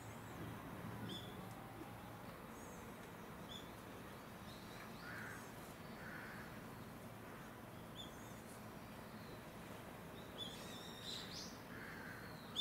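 Birds calling over faint outdoor background noise: short high chirps every few seconds, with a quick flurry of calls near the end.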